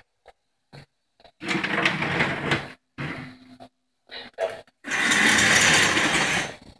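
P-SB7 spirit box sweeping through radio stations: choppy bursts of static that start and stop abruptly, with a few short clicks at first and the longest, loudest burst lasting nearly two seconds about five seconds in.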